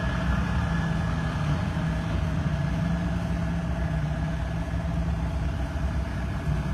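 Farm tractor and truck engines running at a steady low drone as the vehicles roll past, with steady engine tones and no sudden changes.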